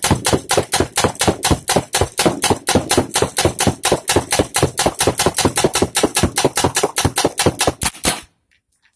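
Spyder Victor semi-automatic paintball gun firing nylon riot balls in rapid fire, about six shots a second. The firing stops suddenly about eight seconds in.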